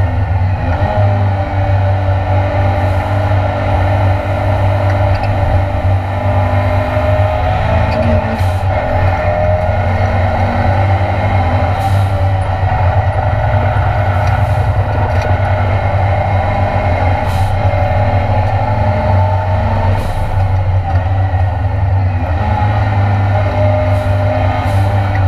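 Ford Escort Mk2 Cosworth race car's engine running at high revs under race load, heard from inside the stripped cabin, its pitch wavering slightly. Short sharp cracks cut through every few seconds.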